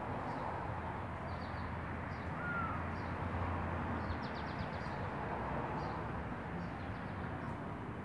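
Steady low outdoor city hum with faint, scattered high bird chirps. About four seconds in comes a quick run of about six chirps, and earlier there is one short whistle.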